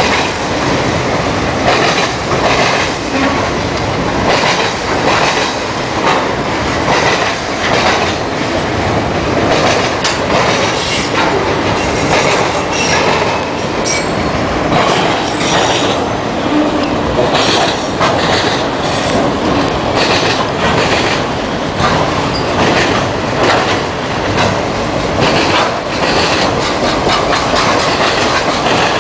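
Auto-rack freight cars of a Union Pacific train rolling steadily past at close range. Their steel wheels click over the rail joints in a constant clickety-clack.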